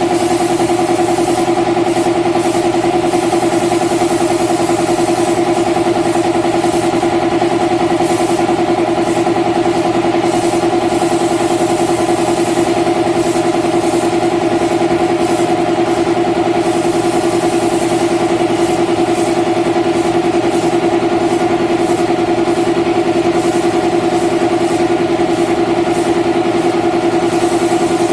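Air compressor feeding a paint spray gun, running with a loud, steady hum. Over it, the spray gun's air hisses in short spells as the trigger is pulled and released.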